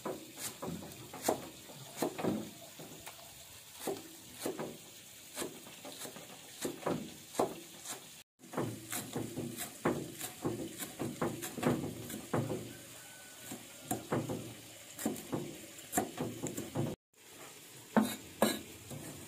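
A Chinese cleaver chopping green onions on a wooden chopping block: a long run of sharp, irregular knocks, several a second, broken twice by short gaps.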